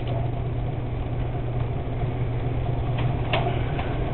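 A steady low hum, with a few short crackles about three seconds in as duct tape and paper are pressed onto a door.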